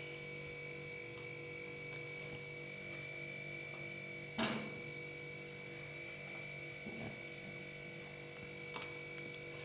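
Steady electrical hum with a faint high tone underneath; about four seconds in, a single short knock of a spoon against the bowl as smashed potato is added to the vegetable mix, with a couple of fainter soft knocks later.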